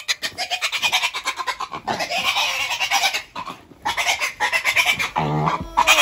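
Piglets squealing and grunting in rapid, harsh pulses as one is being caught, with a few short breaks.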